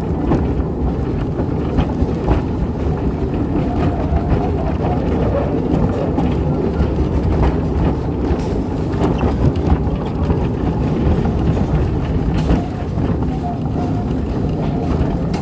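Steady low rumble of a miniature railway train running along its track, heard from on board, with a few faint clicks.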